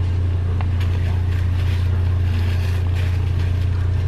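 A loud, steady low hum, with a few faint knocks and rustles of plastic-wrapped paper towel packs being shifted on a metal shelf.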